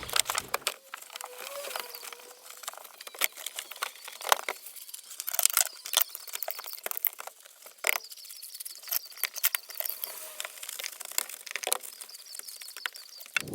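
Waterproof sealing tape being pulled off its roll and pressed down over the floor-pan seams: a run of irregular crackles, rips and snaps.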